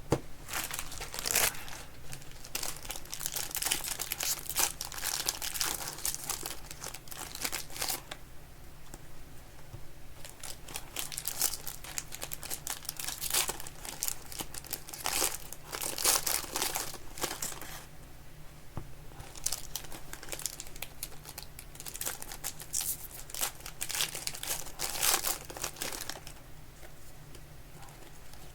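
Foil and plastic wrappers of trading-card packs being torn open and crumpled by hand, in repeated irregular bursts of crinkling.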